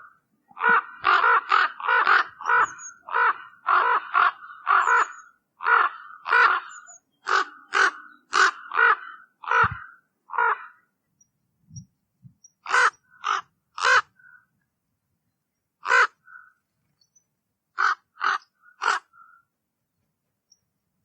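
Common raven calling: a quick run of short calls, about two a second, for some ten seconds, then after a pause a few single calls spaced a second or two apart.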